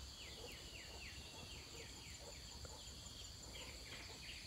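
Faint birdsong: a bird calling a run of short, quick down-slurred chirps, more sparsely in the second half, over a steady high insect drone.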